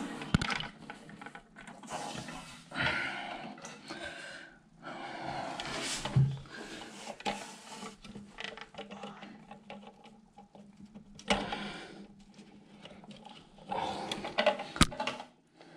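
Hands working to refit a toilet seat's hinge pin in a cramped spot: irregular rustling and handling noise with scattered knocks and clicks, and a sharp click near the end.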